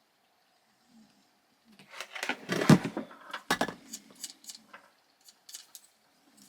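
Hands handling a DSLR camera body and its battery compartment: a flurry of small plastic clicks and knocks about two seconds in, then a few lighter clicks near the end.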